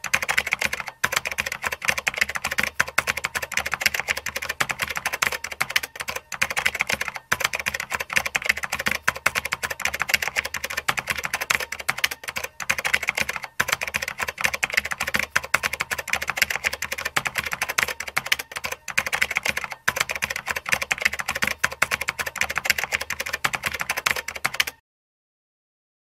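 Rapid, continuous typing sound effect, dense quick key clicks with no let-up, stopping suddenly near the end.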